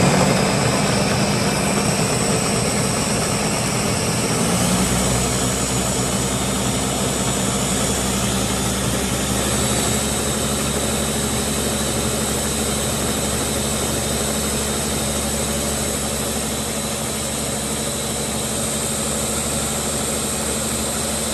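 Ninja Auto-iQ 1200-watt countertop blender running at full power, churning a thick mix of soaked cashews, cauliflower and coconut milk. Its steady whir steps slightly higher in pitch about five seconds in.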